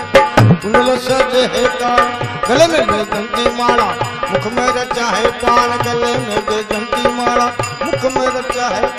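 Instrumental interlude of a devotional bhajan: a harmonium playing sustained melody notes over a hand drum's steady beat, the drum's bass strokes bending in pitch.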